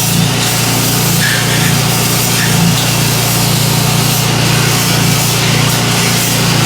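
Electric power sander running steadily on the bus's body panels and body filler, a loud continuous sanding noise over a low motor hum.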